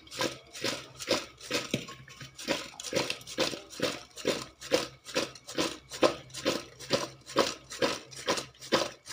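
Slit gunda (Cordia fruits) shaken and tossed in a stainless-steel bowl to coat them with salt and turmeric, the fruits rolling and rattling against the steel in a steady rhythm of about two and a half strokes a second.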